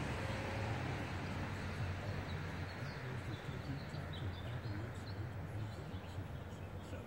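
Vehicle engine idling with a steady low hum, with small birds chirping in the background.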